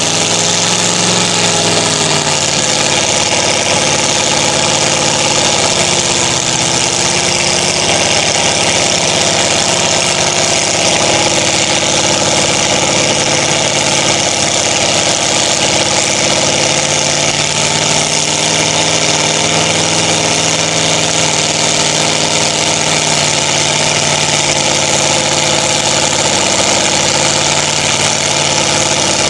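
Engine of a lifted mud-bogging 4x4 pickup running steadily at low revs, its pitch rising and dipping a little as the truck works slowly through a deep mud pit.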